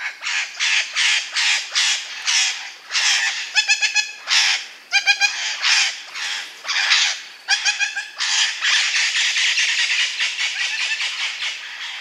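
Parrot squawking: a quick run of harsh screeches, about three a second, with a few shorter pitched calls in the middle. The calls run together into a denser stretch near the end.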